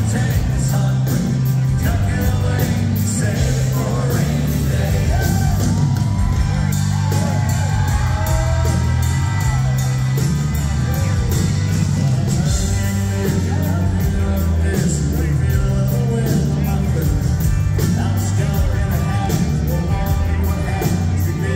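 Live country band playing with a steady drum beat and a male lead vocal, with yells and whoops from a crowd over the music.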